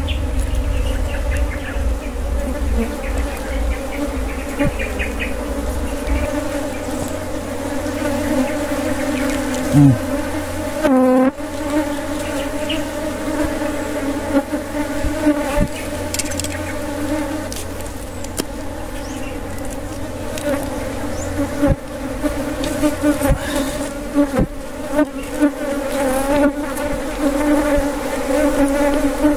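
Honeybees buzzing steadily around their opened ground nest. About ten seconds in, a louder buzz sweeps past as a bee flies close, and there are a few light clicks of metal tongs working the comb.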